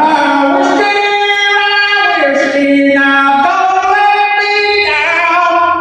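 Solo singer's voice singing a slow melody of long held notes, stepping to a new pitch every second or so. It starts abruptly and fades out at the end.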